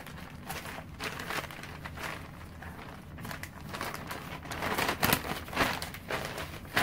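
Paper packaging rustling and crinkling as it is handled and searched through, in irregular bursts that get louder about five seconds in.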